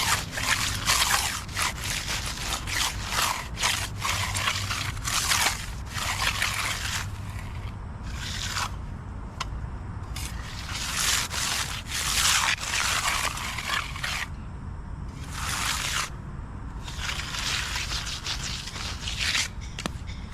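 Finishing tools being worked back and forth across a fresh concrete slab: a series of rasping scrape strokes of varying length, some short and some drawn out over a second or two, with a steady low hum underneath.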